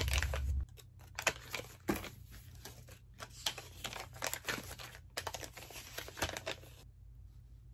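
Paper receipts crinkling and rustling as they are handled and sorted on a desk, in a string of irregular crackles that stop near the end.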